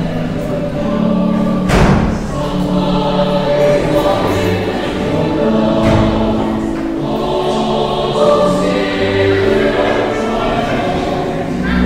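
Choir singing a slow hymn in sustained held chords, with a thump about two seconds in.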